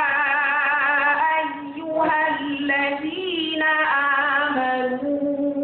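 A reciter's voice chanting the Qur'an in a drawn-out melodic style, holding long notes with a wavering vibrato, with brief breaks and shifts in pitch about two and three seconds in.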